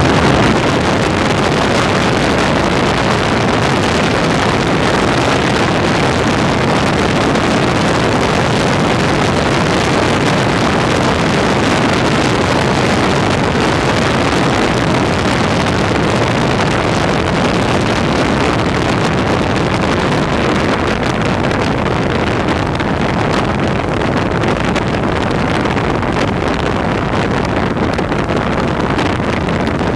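Steady rush of wind on the microphone over vehicle and road noise, as from a vehicle travelling at speed.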